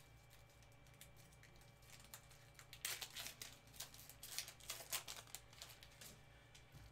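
Faint crinkling and rustling of a silver foil trading-card pack being handled in gloved hands, with a cluster of light crackles in the middle.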